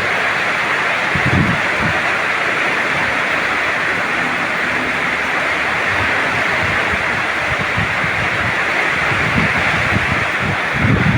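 Heavy rain falling as a steady hiss, with occasional low rumbles of wind on the microphone, the last about a second before the end.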